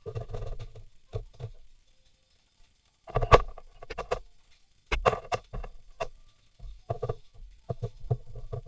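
Irregular clusters of short knocks and clatter from hard objects being handled, pausing for about a second and a half near the start before resuming.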